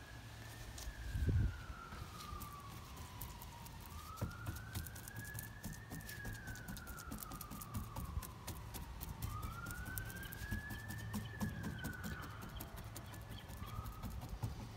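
An emergency vehicle siren wailing faintly, its pitch slowly rising and falling three times, each wail lasting about four to five seconds. Underneath are a low steady rumble, scattered soft clicks, and a single dull thump a little over a second in.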